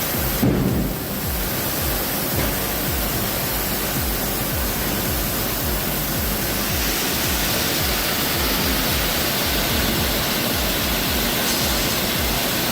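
Background music with a steady beat, over a loud, even rushing noise.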